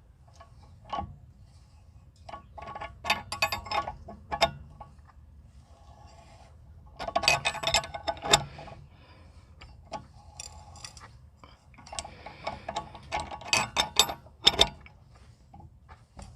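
Metal tools clicking and clinking in several bursts as a brake caliper wind-back tool is worked with a wrench, turning the rear caliper piston back in.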